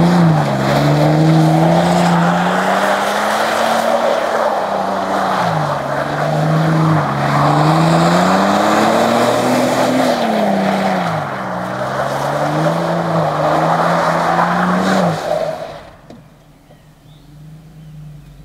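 Ford Ranger pickup engine revving up and down again and again as the truck spins doughnuts, with its tyres spinning and hissing through loose dirt. About fifteen seconds in the revving and tyre noise cut off sharply, leaving only a faint low hum.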